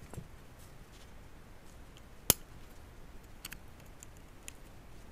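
Small-parts handling: tweezers and a small LED circuit board being positioned in a metal housing, with one sharp click a little over two seconds in and a few faint ticks later.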